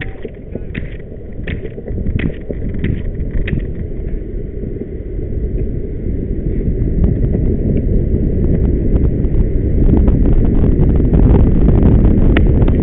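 Longboard wheels rolling on asphalt with wind buffeting the microphone, a low rumbling roar that grows steadily louder. Regular sharp clicks sound in the first few seconds.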